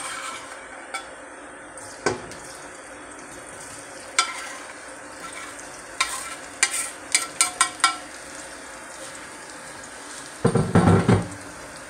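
Chopped onion dropping into hot olive oil in a stainless steel pot and sizzling, a steady hiss with a run of sharp clicks and taps as the pieces fall and the board knocks the pot. A louder burst of noise comes near the end.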